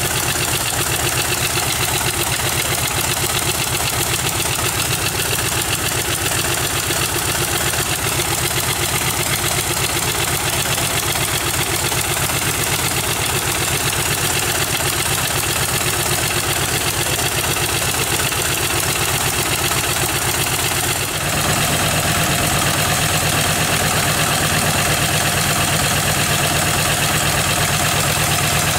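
Polikarpov Po-2's five-cylinder radial engine idling on the ground, with a steady run of firing pulses. About two-thirds of the way in it briefly dips, then picks up and runs a little louder and faster.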